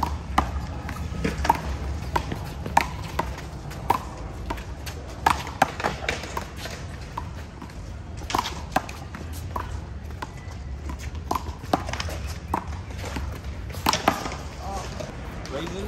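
Small rubber handball being struck by hand and smacking off the concrete wall in a one-wall handball rally: a string of sharp claps at an irregular pace, roughly one every second.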